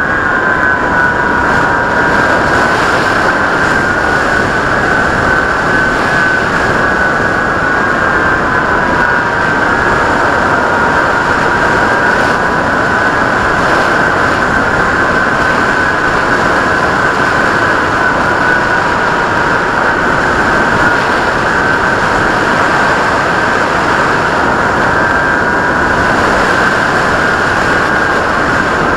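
Skywalker RC plane's electric motor and propeller whining steadily in flight, with two held tones that drift slightly up and down in pitch over a constant rush of wind noise.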